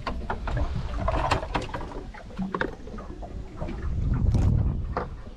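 Irregular clicks and knocks over a low rumble, with a louder swell about four seconds in: handling noise from fishing gear and a boat while a small catfish is being landed.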